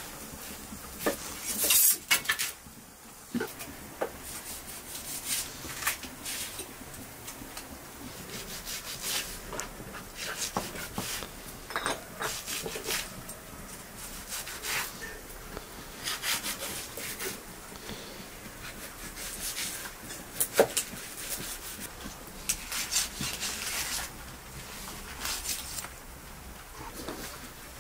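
A large knife slicing and scraping through a raw leg of lamb on a wooden cutting board, in repeated short strokes, with now and then a sharp knock of the blade against the wood.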